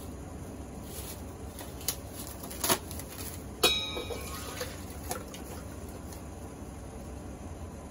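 Kombu dashi in an aluminium saucepan on a gas burner coming to the boil, with a steady bubbling rush. A few light clicks and, about three and a half seconds in, a sharp clink that rings briefly.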